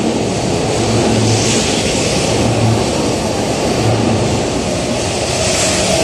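JR East E231-800 series electric commuter train accelerating out of the station as its cars run past the platform. A steady rumble of wheels on rail, with a low pulse returning about every second and a bit.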